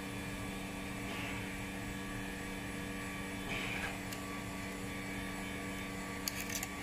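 Steady electrical hum of a flex cable bonding machine, with light handling rustle and a few small clicks near the end as the display and phone are handled.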